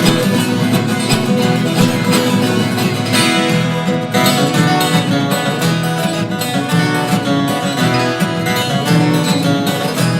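Instrumental passage of a pagode de viola: a viola caipira, the ten-string Brazilian folk guitar, played in a quick plucked and strummed pagode rhythm.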